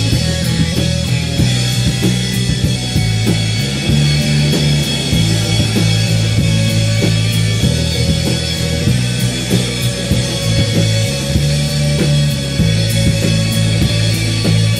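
Live rock band playing loudly: electric guitars, bass and a drum kit keeping a steady beat, with the bass notes strongest.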